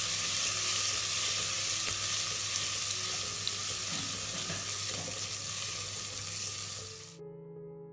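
A tempering of mustard seeds, cumin, curry leaves, dry red chillies and garlic paste sizzling in hot oil in a stainless steel pot, stirred with a steel ladle. The sizzle cuts off suddenly near the end, where soft piano music begins.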